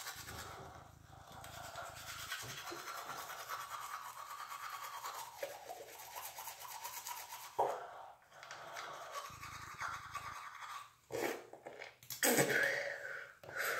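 A manual toothbrush scrubbing teeth: a steady, fast back-and-forth brushing scrape. Near the end come a few louder wet sounds as toothpaste foam is spat out.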